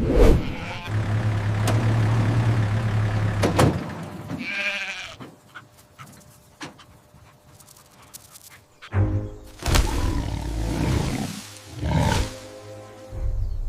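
Background music with scattered sound effects: a sharp hit at the start, a steady low hum for a few seconds, and a short animal cry about five seconds in. Several more hits and swells come near the end.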